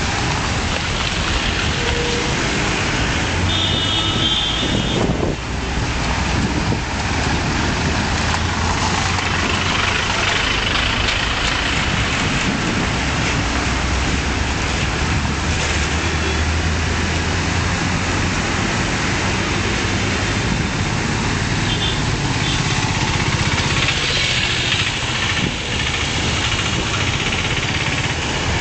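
Heavy road traffic: truck and car engines running and idling, with tyre noise on a wet, waterlogged road. Short high-pitched tones sound briefly twice, about four seconds in and again past twenty seconds.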